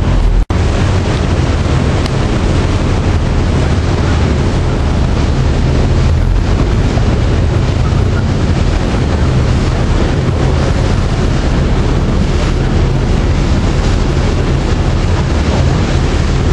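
Wind buffeting the microphone over the steady low rumble of a boat's engine and rushing water. The sound cuts out for a moment about half a second in.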